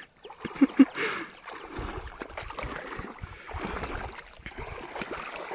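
Lake water sloshing and splashing irregularly around someone wading.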